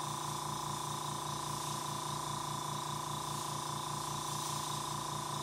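Gravity-feed dual-action airbrush hissing steadily as air flows through it, the trigger held down for air and pulled back only slightly to spray super-fine lines close to the paper. A steady low hum runs underneath.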